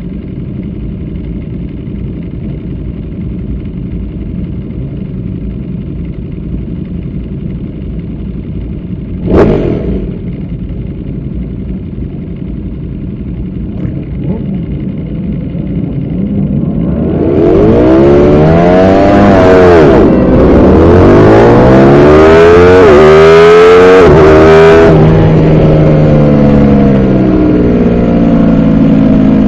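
Race motorcycle engines on a starting grid, heard onboard a Ducati Panigale V4 R: a steady running hum with one sharp loud burst about nine seconds in. About halfway through the bikes launch and the engine revs hard through several upshifts, each rise in pitch cut off by a drop, then settles to a lower, steadier note near the end.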